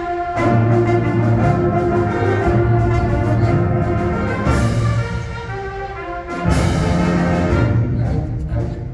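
High school symphonic wind band playing: sustained brass and woodwind chords, with loud accented entries about four and a half and six and a half seconds in.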